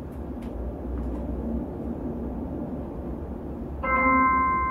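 A computer chime sounds about four seconds in: several bell-like tones struck together that ring on and slowly fade, marking the end of the scan. Before it there is only a low steady hum.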